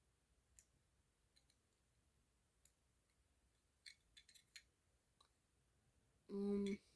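Faint, scattered small clicks and taps of metal as a Zippo lighter's insert is handled and picked at to get the cotton out, with a quick cluster of clicks a little past halfway. A short hum of a voice comes near the end.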